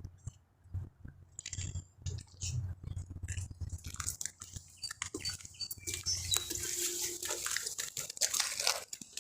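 Footsteps crunching and scraping over demolition rubble, a rapid irregular run of small crunches and clicks.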